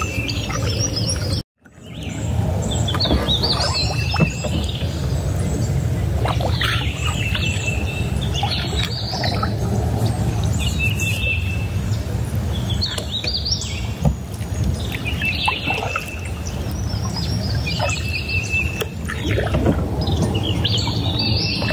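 Several birds calling and singing, one repeating a short steady whistled note every few seconds, over a steady low rumble. The sound cuts out completely for a moment about a second and a half in.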